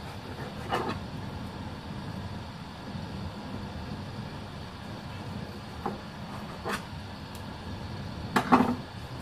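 Steady low rumble of a gas burner heating a lidded pot of water toward the boil, with a few short knocks, the loudest pair near the end.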